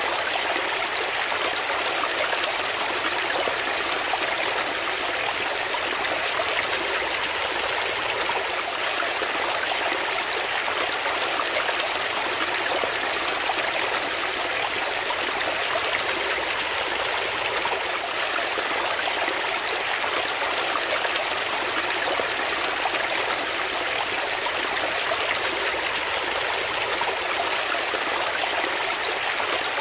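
Shallow brook water splashing and gurgling over rocks in a small cascade, a steady rushing sound.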